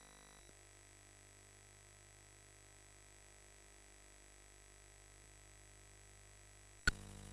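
Commodore 64 sound output from a SIDKick in 6581 emulation, carrying only a faint steady hum. Near the end a single sharp click comes as the video player starts, and the hum gets louder.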